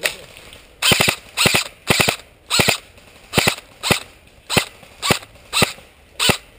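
Airsoft rifle fired in single shots, a steady string of about eleven sharp shots at roughly two a second.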